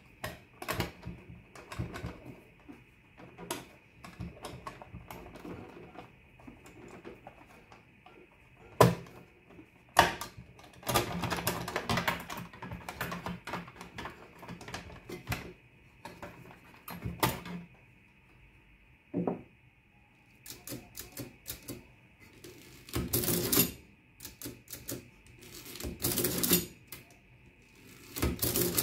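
Irregular mechanical clicks, knocks and clatter from an Olivetti Summa Prima 20 mechanical adding machine. First its plastic body shell is unclipped, lifted off and set down; then, in the last third, the bare mechanism clatters in louder bursts as it is worked by hand.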